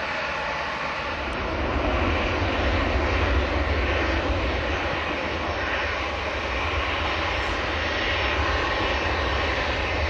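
Boeing 737-800's CFM56-7B turbofan engines at taxi power: a steady whine over a low rumble, swelling about two seconds in as the airliner taxis close past.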